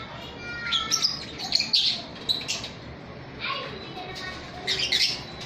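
Pet lovebirds and budgerigars in an aviary chirping and chattering in several short bursts of high calls.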